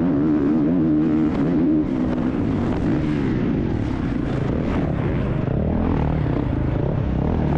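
Factory Honda CRF450 motocross bike's single-cylinder four-stroke engine revving hard and rising and falling in pitch as the rider works the throttle, heard from on the bike. It eases slightly about two seconds in, then picks up again.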